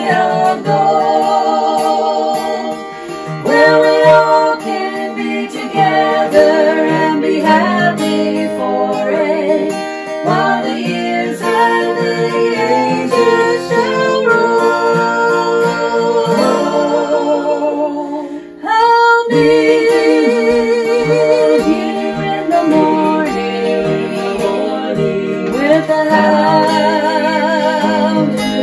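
A small group singing a gospel hymn to a strummed acoustic guitar, the held notes wavering with vibrato. The sound breaks off briefly about two-thirds of the way through, then the singing and guitar resume.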